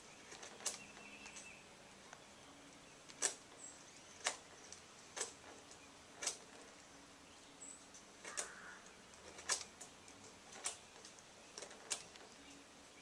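Razor knife whittling a point on a small wooden pipe tamp tool: short sharp clicks of the blade cutting wood, roughly one a second at an uneven pace.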